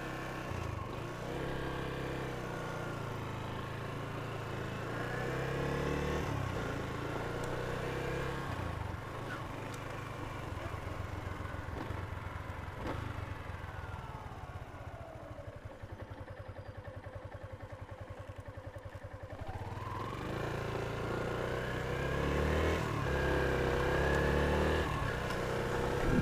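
Yamaha Jupiter MX King (Y15ZR) 150cc single-cylinder four-stroke motorcycle engine running through its standard exhaust, the revs climbing and changing repeatedly. Around the middle it settles to a lower, evenly pulsing beat, then pulls up again near the end.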